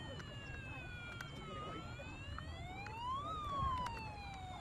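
Electronic siren of a toy fire boat wailing: a tone that slowly falls, climbs over about a second and a half, then slowly falls again.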